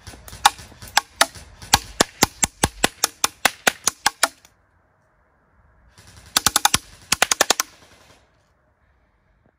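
Ares Amoeba AM-008 airsoft electric gun (AEG) firing: a string of sharp shots about five a second for roughly four seconds, then, after a pause, two short rapid full-auto bursts.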